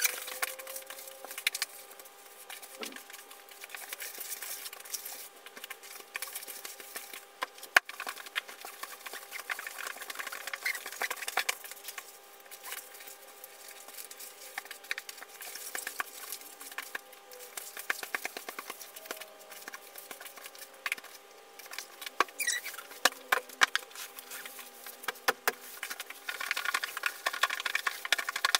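Fabric being smoothed and rolled onto a flat cardboard board: rustling and scraping of cloth, with scattered light taps and clicks from the board and the cardboard underneath, and one sharp click about eight seconds in.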